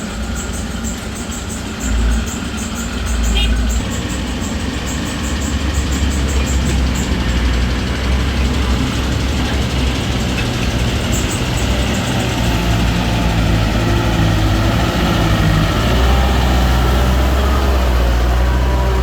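Heavy vehicle's diesel engine running steadily, with a fast ticking over it for the first several seconds.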